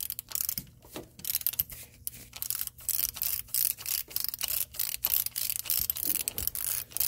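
Twist ratchet clicking rapidly and unevenly as its handle is twisted to spin a loose 15 mm starter motor mounting bolt out.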